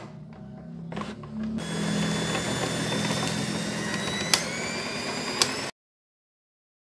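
Electric stand mixer motor running at medium speed, its beaters whisking eggs and sugar to beat them fluffy: a steady motor hum with a thin whine, growing louder about a second and a half in, with a few sharp clicks. It cuts off abruptly near the end.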